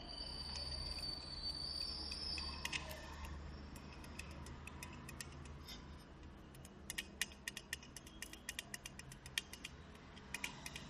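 Soldering iron working along a mobile phone LCD flex's solder contacts: faint, irregular sharp ticks and crackles, thickest in the last few seconds, over a low steady hum. A thin high tone sounds for the first two seconds.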